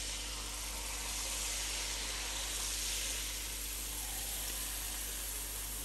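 Jalebi batter sizzling as it fries in hot oil in a frying pan, a steady hiss.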